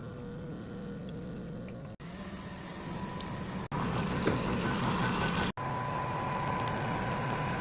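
Nespresso Vertuo coffee machine brewing a Melozio Boost pod: a steady mechanical hum and whir with coffee pouring into the cup. It is cut into short pieces, louder in the later ones.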